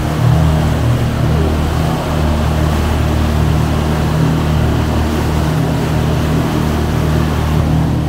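Pontoon boat's motor running steadily under way, a low hum mixed with a steady rush of wind and water.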